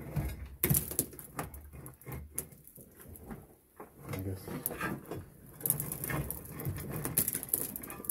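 Irregular scrapes, knocks and rustling of a person clambering about a mine tunnel, gloved hands brushing against rock and metal.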